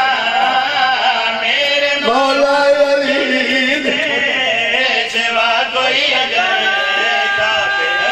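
A man's voice chanting devotional verse in a drawn-out, melodic recitation style, with long held notes near the end.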